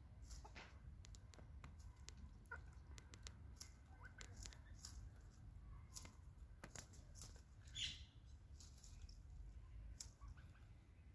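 Bantam hens foraging in a flower bed, heard faintly: scattered clicks and rustles of pecking and scratching in soil and dry leaves, with a few soft clucks. A louder rustle comes about eight seconds in.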